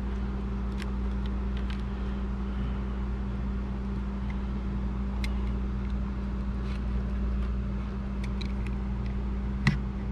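A steady low mechanical hum runs throughout, with faint scattered clicks and scrapes from a utility knife blade cutting through the silicone seal around a travel-trailer door lock. A sharper click comes near the end.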